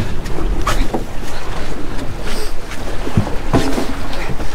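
Wind buffeting the microphone over the rush of choppy sea against a small fishing boat's hull, with a few short sharp knocks.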